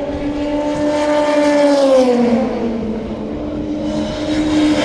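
Endurance-racing prototype cars passing at speed. Each engine note drops in pitch as the car goes by: one about two seconds in, another near the end.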